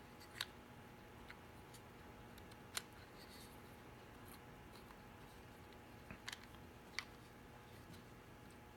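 Near silence broken by about six small, sharp clicks as the plastic gears and levers of a disassembled power trunk latch are handled, the loudest about three and seven seconds in.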